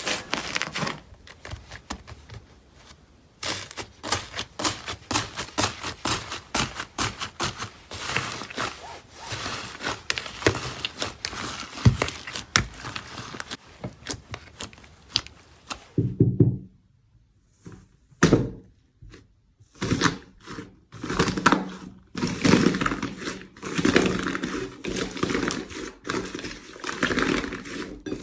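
Slime being squeezed and poked by hand, making dense runs of small crackles, clicks and pops, with a short lull about sixteen seconds in.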